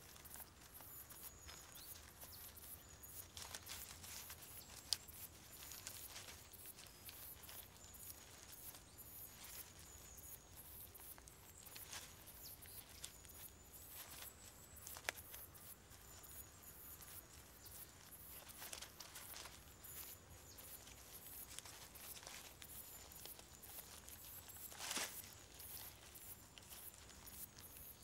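Near silence: faint outdoor ambience with scattered soft crackles and clicks, and a faint short high chirp recurring every second or two.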